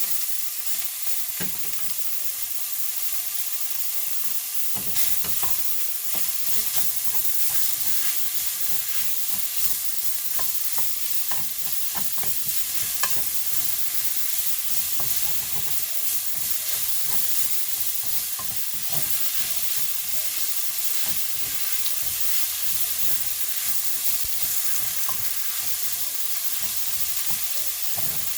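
Food sizzling in a frying pan while being stirred, with a steady high hiss and frequent short knocks and scrapes of a utensil against the pan.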